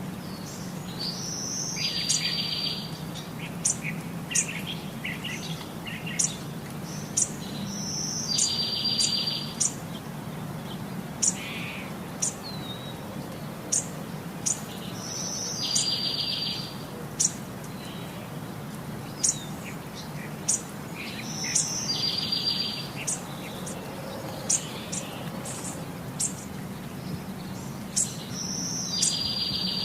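Birds singing: one phrase, a short high note followed by a buzzy trill about a second long, comes back about every six to seven seconds. Short sharp high chirps sound in between, over a low steady hum.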